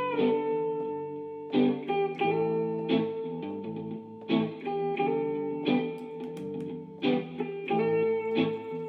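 Background music: a guitar strumming and picking chords in a steady rhythm.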